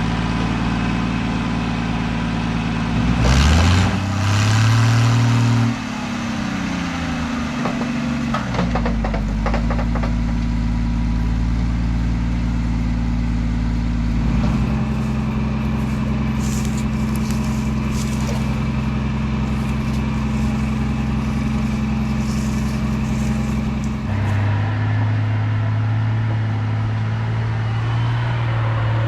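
Lull telehandler loader's engine running steadily, revving up a few seconds in and easing back down, then shifting between steady speeds as the machine works, with faint clinks over it in the middle.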